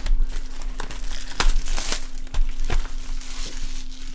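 Plastic wrapping on a trading-card box crinkling and tearing under the hands, a dense run of irregular crackles.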